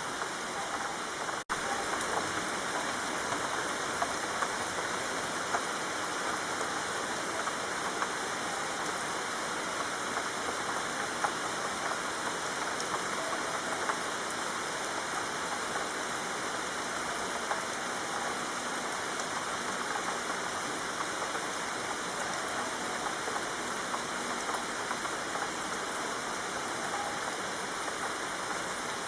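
Steady rain falling, with scattered small drop ticks through it. It cuts out for an instant about a second and a half in.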